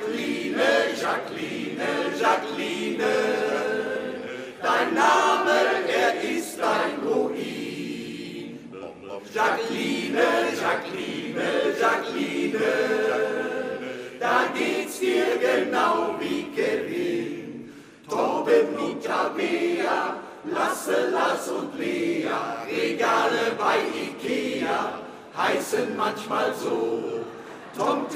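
Male choir singing a cappella in close harmony, with short breaks between phrases.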